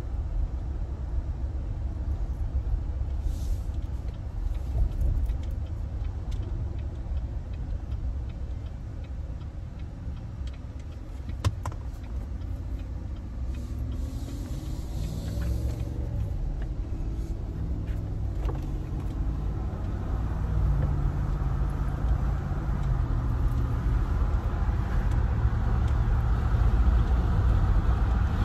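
Car driving with a side window down: a steady low road and wind rumble from inside the cabin, growing louder in the last third as the car picks up speed, with a single sharp click about halfway through.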